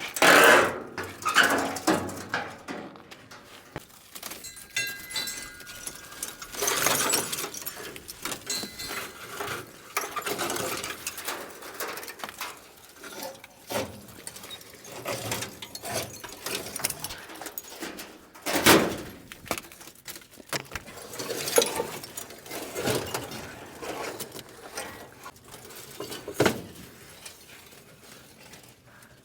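Copper wiring being ripped out of a burnt-out car: irregular tugging, scraping and rattling of wire and metal, with sharp snaps, and a brief high squeak about five seconds in.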